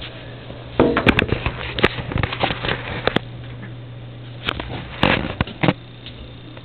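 Handling noise from a camcorder being moved about: a string of knocks, clicks and rustles, in two bursts about a second in and again around five seconds in, over a steady low hum.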